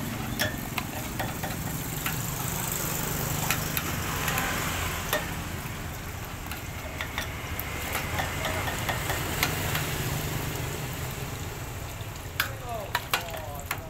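Brush scrubbing and water splashing on the stainless steel screw housing of a coconut milk press, with scattered sharp clicks and knocks, over a steady low motor hum.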